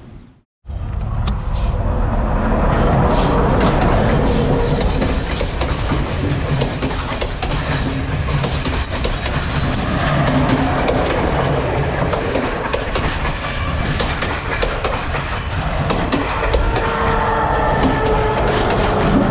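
A Sri Lanka Railways diesel train running past close by: a loud, steady rumble and rattle of wheels on the track. It starts abruptly about half a second in.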